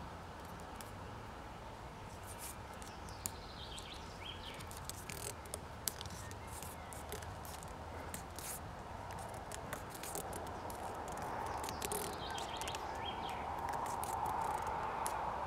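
Plastic grafting tape crackling in many short sharp clicks as it is stretched and wound around a fresh graft union, over a steady background hiss that grows louder in the second half.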